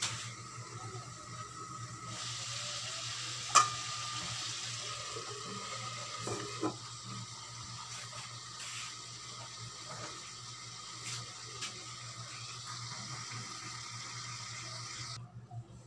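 Chicken wings sizzling as they brown in oil in a covered aluminium wok, a steady frying hiss. A sharp metallic tick rings out about three and a half seconds in. The sizzle cuts off suddenly near the end.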